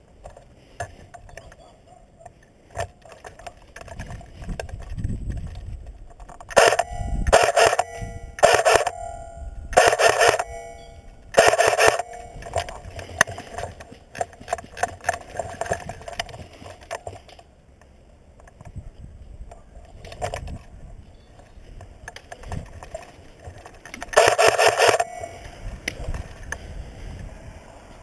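Airsoft rifle firing short full-auto bursts, each about half a second long: five in quick succession about a quarter of the way in, then one more near the end, over the rustle and thump of a player moving.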